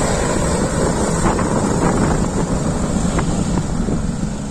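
Helicopter running close by, its rotor downwash buffeting the microphone with a wind rumble, slowly getting quieter.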